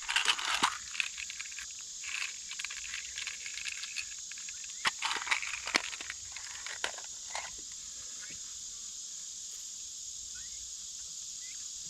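Scattered small clicks and rustles of hands working with beads and string, mostly in the first two-thirds, over a steady high-pitched drone of insects.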